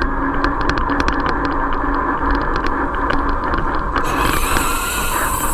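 RC crawler truck driving off-road: its electric drive motor and gears whirring steadily, with many sharp clicks and ticks over the first few seconds. About four seconds in, a high hiss joins.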